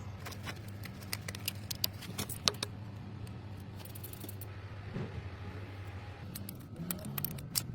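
Scattered light clicks and small metallic rattles from parts and tools being handled, bunched in the first couple of seconds and again near the end, over a steady low hum.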